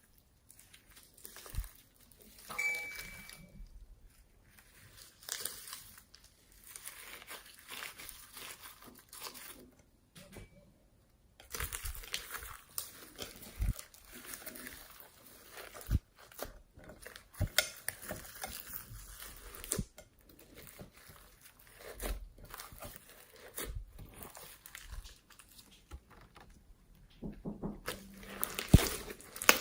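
Slime being squeezed and pressed by hand, making irregular crinkling, crackling noise with many sharp clicks and pops.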